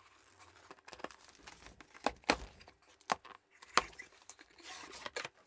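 A cardboard shipping box being opened: packing tape cut and torn, with crackling and rustling cardboard and several sharp knocks as the box is handled, the loudest a little over two, three and nearly four seconds in.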